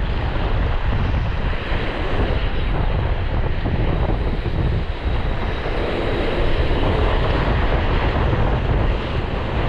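Strong wind buffeting the microphone, with sea surf washing over it in a steady, noisy rush.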